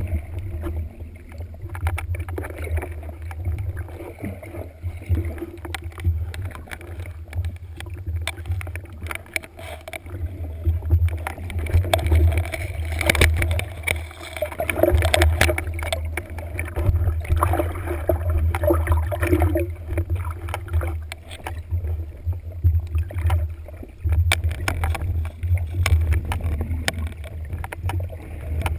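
Muffled underwater rumble and water sloshing picked up through a camera's waterproof housing as it moves through the water on a speargun, with scattered clicks and knocks.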